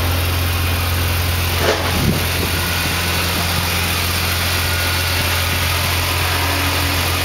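An engine idling steadily, with a brief bump about two seconds in.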